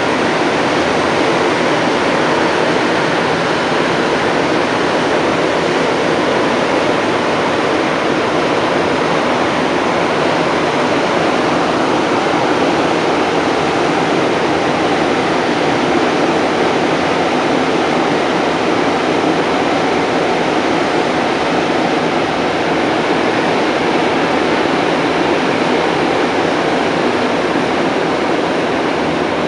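Inside an MR-73 rubber-tyred metro car running through a tunnel: a steady, loud rush of tyre and tunnel noise that holds even throughout.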